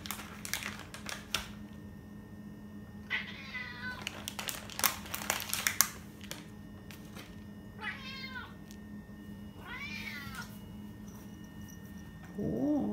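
A domestic cat meowing three separate times, each call under a second, while treats are being handed out. Between the calls come sharp clicks and rustling from a bag of treats being handled, loudest about five seconds in.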